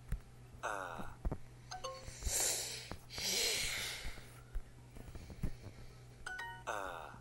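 Language-learning app sounds: short chimes as answers are tapped and a brief jingle near the end as the correct answer is confirmed. In the middle, two loud breathy exhales close to the microphone.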